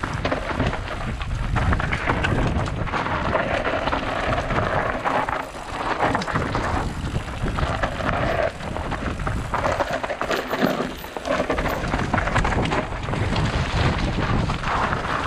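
Wind buffeting the microphone and an enduro bike clattering over rough, stony trail: a continuous rumbling noise that swells and dips with the terrain.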